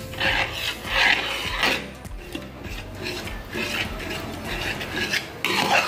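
Spatula scraping and stirring a thickening milk white sauce in a metal kadhai, in quick repeated strokes. This is the continuous fast stirring after cold milk has gone into a butter-and-flour roux, done to keep lumps from forming.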